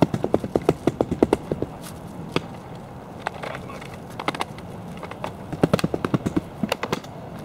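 Rapid clattering and knocking of the canoe's aluminium frame tubes and folded skin being handled and rolled up, in two quick runs of sharp clicks with scattered knocks between.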